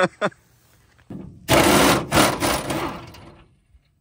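Air impact wrench hammering for about two seconds on a cab body-mount bolt, working it loose, then stopping.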